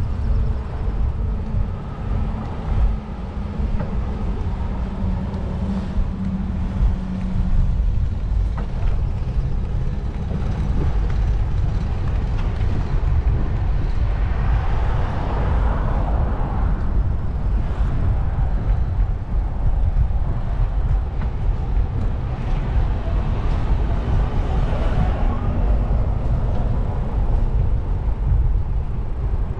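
Heavy low rumble of wind on the microphone and road noise while riding a bicycle, with a steady hum over the first seven seconds or so.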